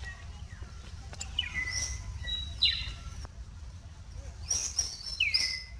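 Birds calling: a few short chirps that sweep down in pitch, about a second and a half in, again near the middle, and a quick cluster of them shortly before the end, over a low steady rumble.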